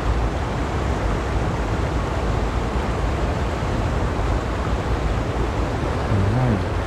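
Shallow mountain stream rushing steadily over a concrete weir apron and small cascades. A short low hum rises and falls near the end.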